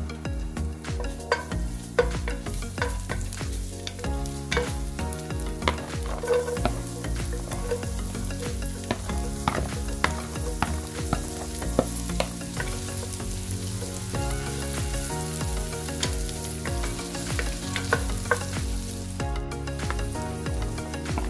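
Garlic, ginger and sliced onion sizzling in hot oil in a stainless steel pan, with frequent sharp clicks and scrapes of a wooden spatula as the onion is pushed in and stirred.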